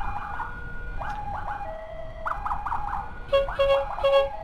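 Electronic emergency sirens of an ambulance and its escort motorcycle sounding together. A steady two-tone hi-lo wail alternates with quick rising-and-falling yelp sweeps. From about three seconds in, a rapid run of short pulsed tones comes in, roughly four a second.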